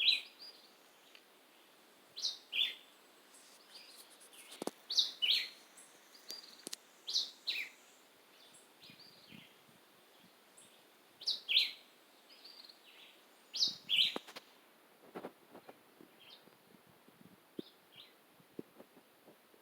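A songbird, taken for the bird called John Chewit in Jamaica (black-whiskered vireo), singing short phrases of two quick down-slurred whistled notes, repeated about every two seconds with a pause in the middle and softer notes near the end.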